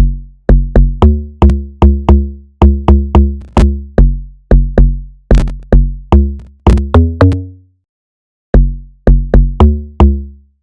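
Drum-machine sample playing a pattern of deep, pitched bass-drum hits, each with a sharp click at the start and then dying away, about two to three hits a second, with a short break near the end.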